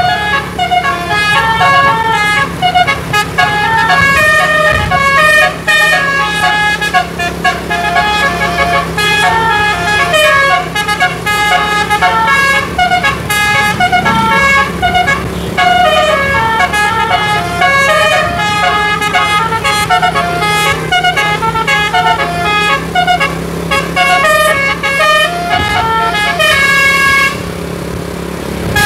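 A bus's telolet musical air horns, a custom DAV module, play a fast, tumbling run of changing notes with several horn tones sounding together, over a steady low hum. The horns stop for about a second and a half near the end, then start again.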